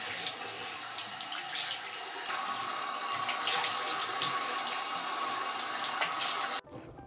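Bathroom tap running into a washbasin while hands splash water onto a face to wash it. The water sound stops suddenly near the end.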